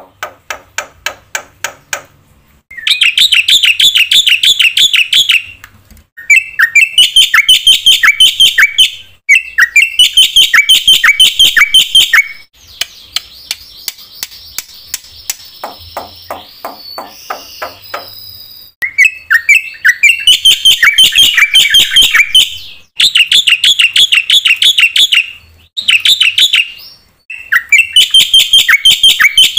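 Black-winged myna (jalak putih) singing loudly in phrases of rapid, chattering notes, each a few seconds long with short breaks between them. Midway there is a quieter stretch of rasping, drawn-out sounds, and then the fast phrases resume.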